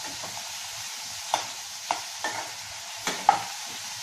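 Sliced onions and cashews sizzling as they fry in hot ghee in a kadhai, stirred with a metal spatula that knocks and scrapes against the pan about five times in the second half.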